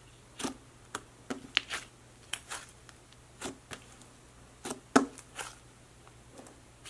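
Mint-green butter slime made with Daiso clay being pressed, poked and spread by hand, giving irregular short pops and clicks, the bubble pops of air trapped in the slime, about a dozen of them, the loudest about five seconds in.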